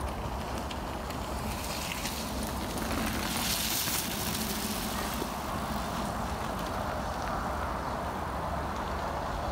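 Mountain bike tyres rolling over a dirt trail, a steady hiss over a low rumble, swelling as a rider passes close about three and a half seconds in.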